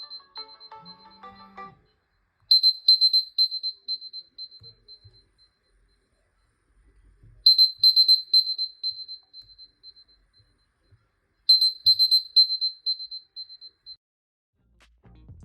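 Smartphone alarm tone: bursts of rapid high-pitched beeps, about four a second, each burst fading over about two seconds and repeating every four to five seconds. The first moment holds the end of a short melodic ringtone.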